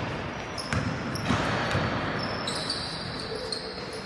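A basketball bouncing on a hard indoor court, with sharp impacts about a second in, and sneakers squeaking on the floor as players move.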